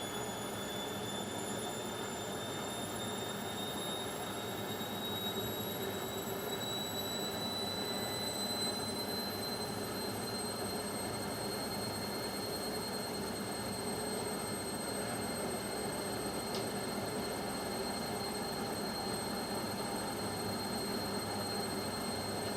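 Indesit washing machine on its spin cycle: a steady rush from the spinning drum with a thin, high motor whine that rises slowly in pitch as the drum speeds up, then holds steady from about halfway through.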